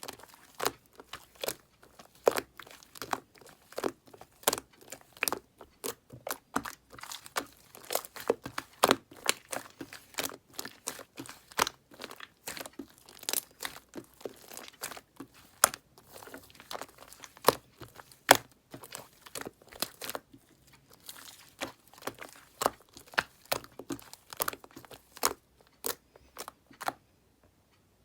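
Close-up crisp crackling and crunching of a green bubble-layered material being crushed, with irregular sharp crackles several times a second. It stops about a second before the end.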